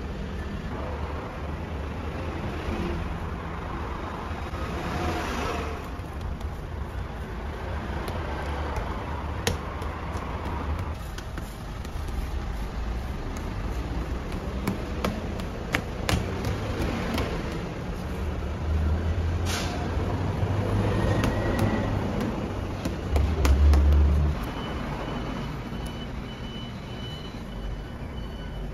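Steady low rumble of background machinery, with occasional light knocks and taps as hands stretch, fold and set down dough on a stainless steel table. A faint high steady tone comes and goes near the end.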